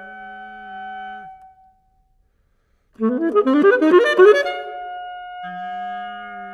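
Solo alto saxophone: a long held, chord-like sound that fades out about a second and a half in, a brief silence, then a quick flurry of notes about three seconds in that settles into long sustained tones.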